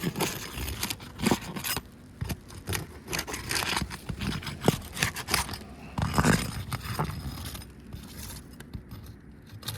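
Roof snake working under brittle 3-tab asphalt shingles, breaking their sealant strips with irregular scrapes and crackles.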